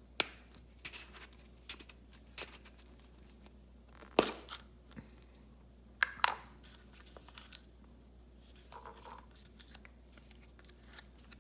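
Toy packaging being handled and opened by hand: scattered clicks, taps and short rustles, the sharpest just after the start, about four seconds in and about six seconds in.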